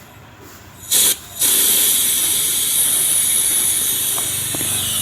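Refrigerant gas hissing out of the fridge's sealed system at the filter drier: a short puff about a second in, then a steady, loud hiss. The hiss shows there is still gas in the system even though the fridge is not cooling.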